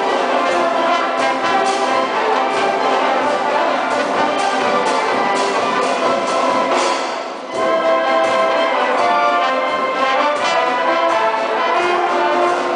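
Brass band music with trumpets and trombones playing a tune, breaking off briefly about seven seconds in and then going on.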